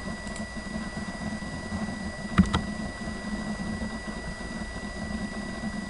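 Steady background hum and hiss with a faint, thin high tone, broken by one short click about two and a half seconds in.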